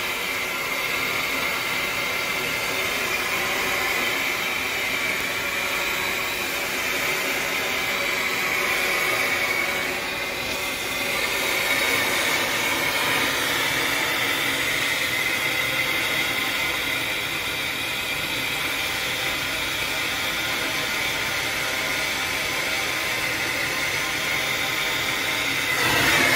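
Hose-fed gas torch burning with a steady hiss as its flame heats the soldered joints of a brass shower valve body and its copper pipes, to free the old valve.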